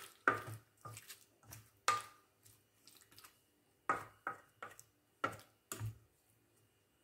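Wooden spoon stirring raw chicken pieces wet with marinade in a stainless steel bowl: soft squelching with sharp knocks of the spoon against the bowl, about a dozen, some ringing briefly. The stirring stops about six seconds in.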